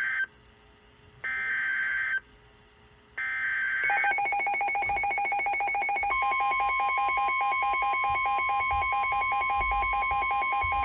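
NOAA Weather Radio Emergency Alert System alert: three one-second bursts of screechy SAME header data tones, then a rapid pulsing alarm beep from about four seconds in. About two seconds later the steady 1050 Hz weather radio warning tone joins it, announcing a severe thunderstorm warning.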